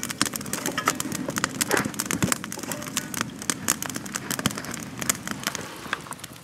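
Wood campfire crackling and popping with many sharp snaps in quick succession as the burning sticks are stirred with a stick.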